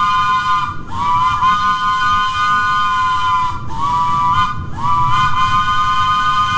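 Miniature train's chime whistle blowing a series of blasts: the end of one long blast, another long one, a short one, then a long one, the long, long, short, long pattern of a crossing signal. Each blast slides up slightly as it starts, with the train's low running rumble underneath.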